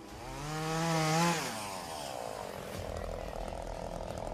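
Chainsaw revving up, holding for about a second, then dropping back, followed by a steady drone.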